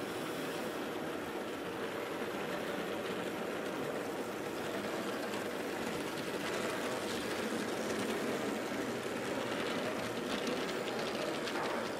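Steady mechanical running noise of old tinplate toy trains and an electric toy crane working its grab bucket, getting a little louder in the second half with faint clicks near the end.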